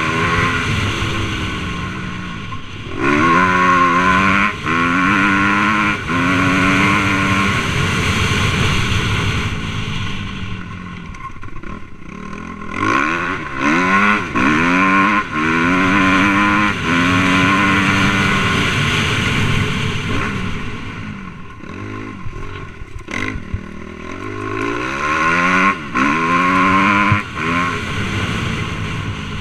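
Suzuki RM-Z250 four-stroke single-cylinder dirt bike engine under hard throttle, its pitch climbing and falling again and again as the rider accelerates, shifts and backs off over rough ground.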